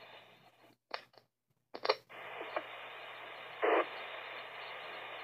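Emergency scanner radio between transmissions: a steady, narrow-band static hiss of an open channel. Near the start it cuts out for about half a second between two short squelch bursts, then returns, with one more brief burst a little past the middle.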